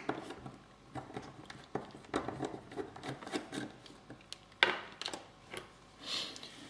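Small Phillips screwdriver backing screws out of a circuit board in a plastic case, with scattered light clicks, taps and scraping. There is one sharper click about two-thirds of the way through.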